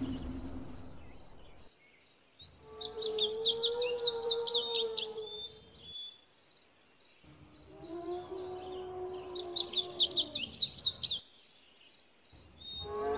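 Birds chirping rapidly over a long, low, steady animal call, a dinosaur sound effect. It comes twice, each time for three to four seconds, with near silence between.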